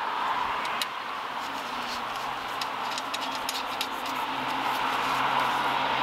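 Light scattered clicks and taps of small bolts, nuts and a metal intake bracket being handled as the hardware is started by hand, over a steady background hum of distant traffic.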